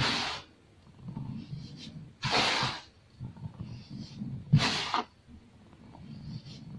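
Handfuls of baking soda powder scooped and let fall onto a heap: three short, loud hissing rushes about two seconds apart, with soft rustling of hands in the powder between.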